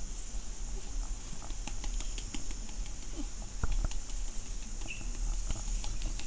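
Soft, irregular small clicks and rustling from a cat being scratched by hand at the base of its tail, over a low rumble.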